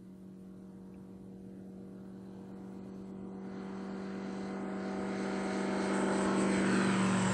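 SkyReach Bushcat's Rotax 912 ULS engine and propeller at takeoff power, a steady droning note growing steadily louder as the plane comes closer along the runway and lifts off.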